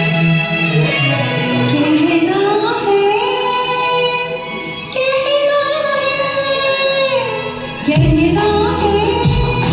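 Music: the intro of a Hindi film-song karaoke track, a gliding melody line over sustained backing, with drums and bass coming in near the end.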